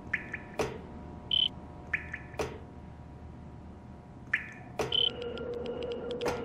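Sound-effect track of an old electrical device being powered up. Sharp clicks and short chirping blips come first, then about five seconds in a steady electric hum starts, with fast crackling ticks over it.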